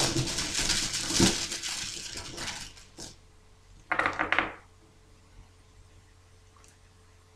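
Handful of game dice rattling together as they are drawn from the dice bag. About four seconds in they clatter briefly onto the table.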